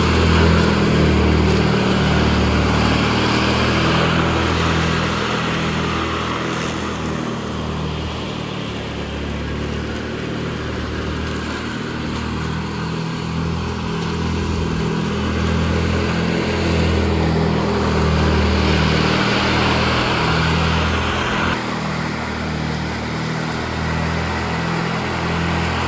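Riding lawn mower engine running steadily under load, its drone rising and falling slightly in loudness.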